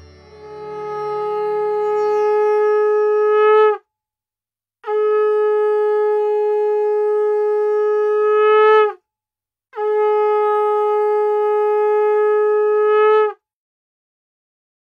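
Conch shell (shankha) blown in three long, steady blasts, each held about four seconds and swelling slightly just before it breaks off.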